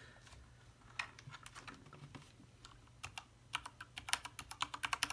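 Typing on an iQunix A80 mechanical keyboard with Cherry MX switches: an irregular clickety clack of keystrokes starting about a second in and coming faster near the end.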